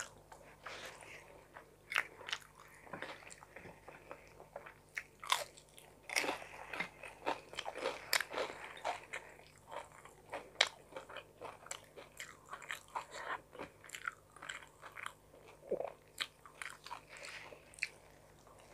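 A person chewing and eating forkfuls of tuna carbonara pasta, with frequent short sharp clicks and crackles of mouth noise.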